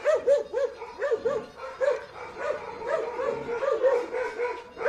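Dog barking at a leopard: a rapid, unbroken string of high, yelping barks, about three a second.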